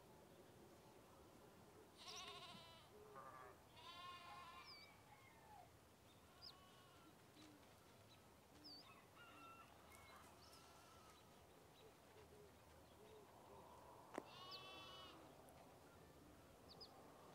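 Faint goat bleats: quavering calls twice in the first five seconds and once more near the end, with short high bird chirps between them.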